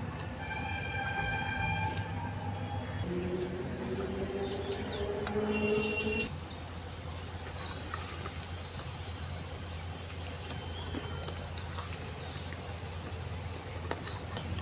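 Background music with held notes for about six seconds. It then cuts to bread gulab jamun deep-frying in hot oil in an iron kadai: a steady sizzling hiss, with birds chirping over it.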